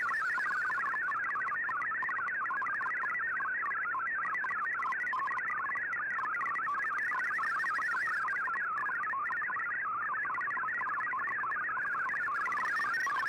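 Shortwave digital data signal in the MFSK text mode, heard through the receiver as a steady warble of fast-hopping tones that jump rapidly and irregularly between pitches.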